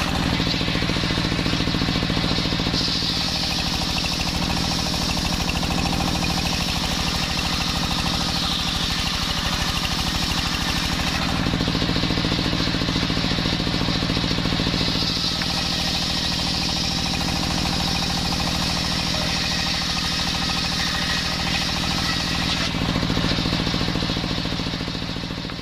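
Homemade belt-driven table circular saw ripping jackfruit wood into boards: a steady mechanical drone with a loud hiss of the cut that rises while a board is being fed through and eases between cuts.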